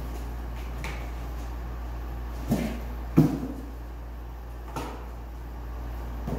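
Kittens playing on and around a cardboard box: a few dull thumps and scuffs as they jump onto and knock against the cardboard, the loudest about three seconds in, over a steady low hum.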